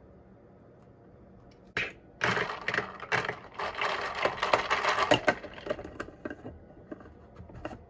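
Ice cubes clattering and rattling into a cup for an iced coffee, a dense run of sharp clicks that starts about two seconds in and goes on almost to the end.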